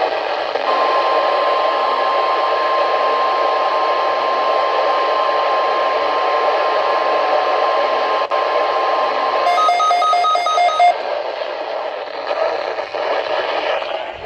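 NOAA Weather Radio receiver sounding the 1050 Hz weather alert tone, one steady pitch held about nine seconds over radio static, as part of a Required Weekly Test broadcast. Near the end it gives way to a quick run of short two-pitch beeps.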